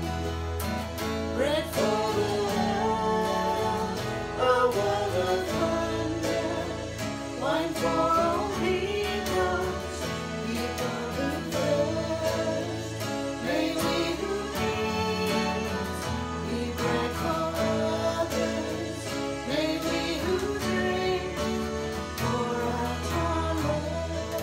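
A woman and a man singing a hymn together, accompanied by strummed acoustic guitar and electronic keyboard.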